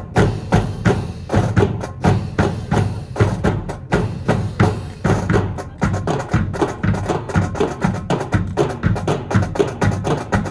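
Military drum corps playing a marching cadence on snare drums over regular bass drum beats. The stick strokes come quicker and sharper in the second half.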